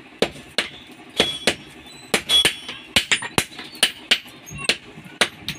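Hammers striking a red-hot steel sword blade on an anvil: sharp, irregular blows about two to three a second, some leaving a brief metallic ring.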